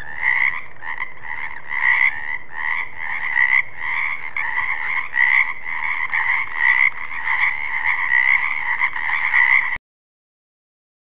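Frog croaking in a steady run of calls, about two to three a second, that cuts off suddenly about a second before the end.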